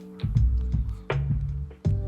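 Background music with a beat: held bass notes that change every second or so, under sharp drum hits.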